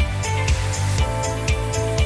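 Background music with a steady beat of about two strikes a second over a bass line.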